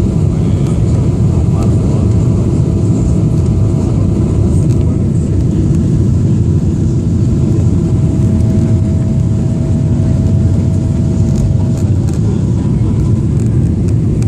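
Steady roar inside the passenger cabin of a Boeing 777-300ER, engine and airflow noise dominated by a dense low rumble. A faint thin steady whine runs beneath it and stops near the end.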